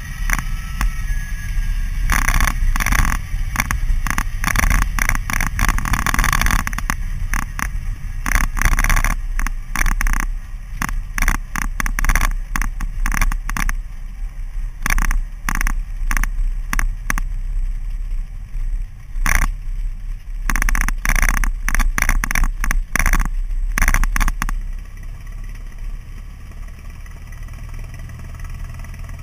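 Light single-engine airplane's piston engine running at low power during the landing rollout, under heavy, irregular rattling and knocking from the shaking cabin and headrest-mounted camera. About 24 seconds in the rattling stops and the engine idles steadily and more quietly.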